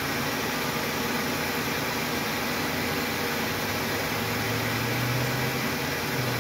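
Vehicle engine idling steadily under a broad hiss, its low hum growing stronger about four seconds in.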